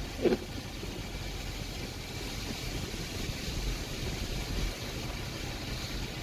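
Outdoor street ambience: a steady low rumble of traffic and hiss. A short, loud thump comes about a third of a second in.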